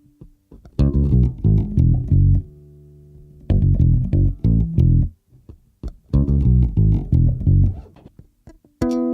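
Instrumental music: a bass guitar and guitar playing plucked, punchy phrases separated by short pauses, with a sustained low chord in the middle.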